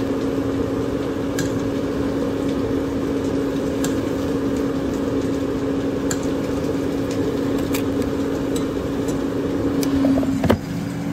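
Steady hum of a kitchen appliance fan, one held tone under a rushing band, then a single sharp clunk about ten and a half seconds in, as of the air fryer basket being pushed back into place.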